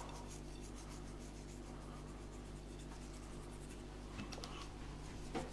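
Pinches of salt sprinkled onto the skin of a raw whole chicken: a faint scratchy pattering over a low steady hum, with a couple of light taps near the end.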